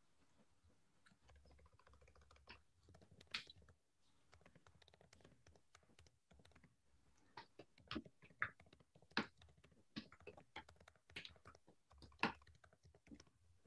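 Faint, irregular keystrokes on a computer keyboard: someone typing, heard over a video-call microphone, with the clicks coming thicker and louder in the second half.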